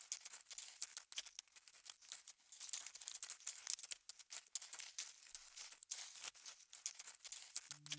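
Faint, irregular crackling and rustling of grass and leaf litter close to the microphone, a dense patter of tiny clicks. Music comes in just before the end.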